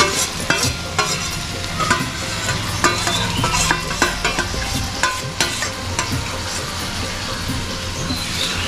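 Chicken masala frying and sizzling in oil in a pan while it is stirred, the spatula scraping and clicking against the pan again and again.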